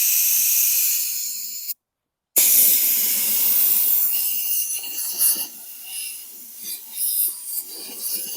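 Compressed-air blow gun hissing into a lawn mower's gas tank to blow it clean, in two blasts: a short one of about two seconds, then after a brief pause a longer one that wavers in level before cutting off near the end.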